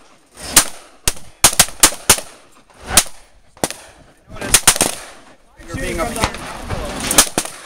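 Gunshots on an outdoor firing line, irregular and sharp: a quick string of about five shots between one and two and a half seconds in, single shots after, three more in quick succession near five seconds, and two close together near the end.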